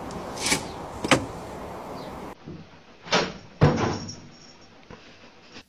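Knocks and thuds: two sharp knocks about half a second apart, then two heavier thumps a couple of seconds later.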